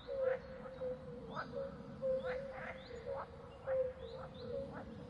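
Repeated short animal calls, each rising sharply in pitch, about two a second, over a steady low tone.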